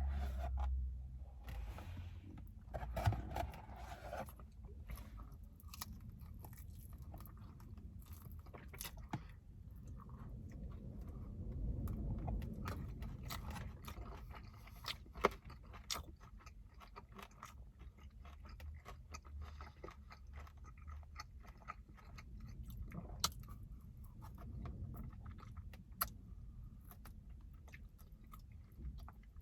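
Close-up chewing and biting of sticky sauced fried chicken wings: wet mouth sounds with many short crunches and clicks scattered throughout.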